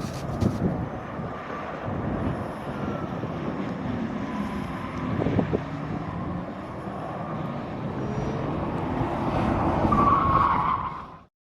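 Car driving on a course with heavy wind noise on the microphone; a tyre squeal rises near the end, then the sound cuts off abruptly.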